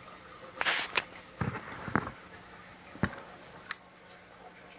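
Handling noise from an AR pistol upper receiver being turned over in the hands: a brief scrape, then a few separate knocks and a sharp click of metal and plastic parts.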